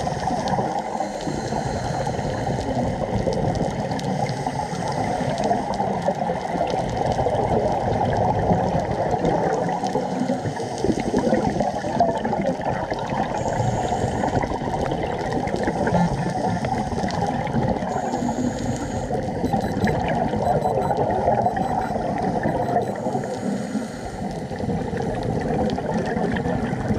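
Steady, muffled underwater water noise on a scuba dive, gurgling and faintly crackling, with most of the sound low in pitch.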